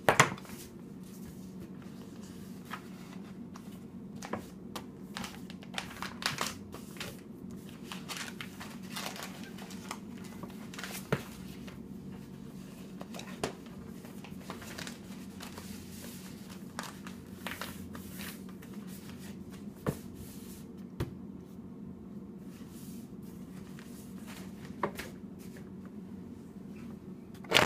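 Large sheets of paper being handled and folded on a tabletop: intermittent rustling and crinkling with scattered light taps, over a steady low hum. A sharp knock comes at the very start and another near the end.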